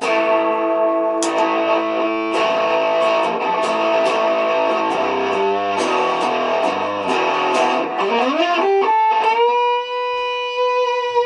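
Electric guitar played through a newly built Tone Bender MK 1.5 germanium-transistor fuzz pedal, on the pedal's first run after assembly. Fuzzed chords are picked repeatedly for about eight seconds, then the pitch bends up into one long sustained note.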